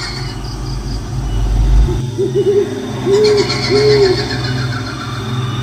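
Horror sound-effect track with an owl hooting: a quavering hoot about two seconds in, then two longer hoots. Beneath it runs a steady low drone, with a deep rumble for the first two seconds and a shrill, high wavering sound in the middle.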